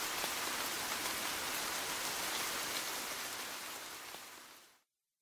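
Rain falling steadily, a dense even patter that fades out near the end.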